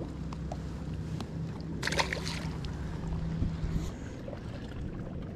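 Cast with a light spinning rod: a brief swish of line leaving the reel about two seconds in. Under it runs a steady low hum that stops near four seconds in.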